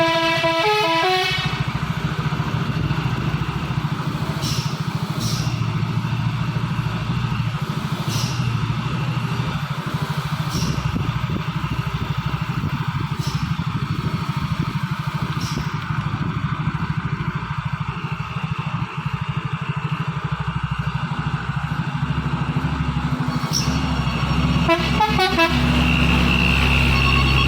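Dump truck's multi-tone telolet horn playing a stepped tune that stops about a second in, then the truck's diesel engine running steadily, with a few sharp clicks. Horn tones sound again near the end.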